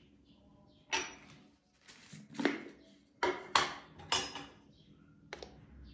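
Kitchen clatter: several sharp clinks and knocks of dishes, containers and utensils being handled and set down, each ringing briefly, spread over a few seconds.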